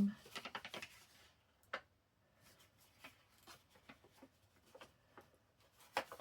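Paper rustling and crinkling as a sheet is handled and folded by hand, with a cluster of rustles in the first second, a sharper tick just under two seconds in, and faint scattered rustles after that.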